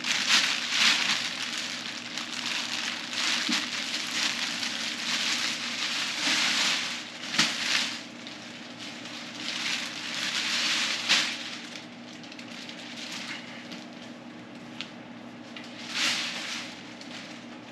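Plastic packaging bag crinkling and rustling in irregular bursts as a motorcycle seat is pulled out of it, busiest in the first half, quieter after, with one more burst near the end. A steady low hum runs underneath.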